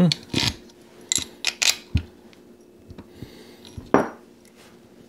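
Scattered metallic clinks and knocks of a Holley 4160 four-barrel carburetor being handled and stood on steel bolt legs, the bolts and nuts tapping against its body and the table; the sharpest knock comes about four seconds in.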